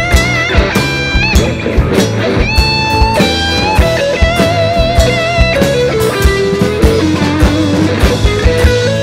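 Live blues-rock band playing an instrumental break: a lead guitar plays bent notes with vibrato over a steady drumbeat, bass and strummed acoustic guitar.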